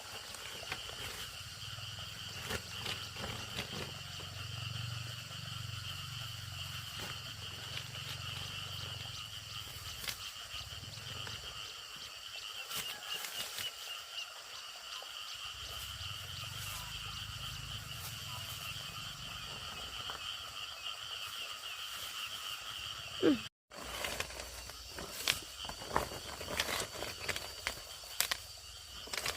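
Outdoor forest ambience: a steady high-pitched chirring of insects over a low rumble. After a sudden break about two-thirds of the way through come scattered clicks and knocks.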